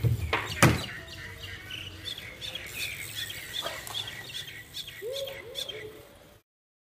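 Mini BMX wheels knocking onto and off a low wooden box, two sharp hits, the second the louder, followed by a bird chirping in a quick regular series. The sound cuts off shortly before the end.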